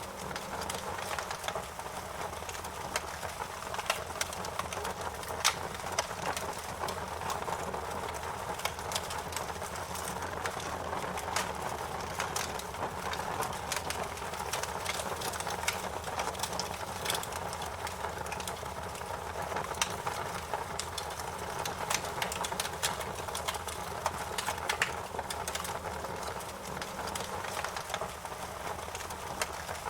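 Wood fire burning in a fireplace, crackling and popping with frequent irregular snaps over a steady hiss of flame.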